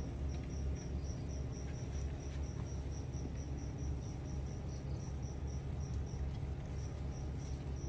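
A cricket chirping steadily: short high chirps at one pitch, about four a second, with a brief pause near the end, over a low steady rumble.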